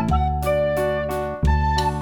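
Background music: a light, upbeat children's tune with keyboard melody over a steady bass beat.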